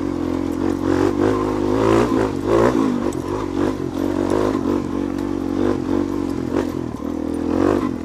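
Suzuki DR-Z400SM's single-cylinder four-stroke engine running at a steady low speed, with scattered clatter and scraping from the bike moving over rough ground.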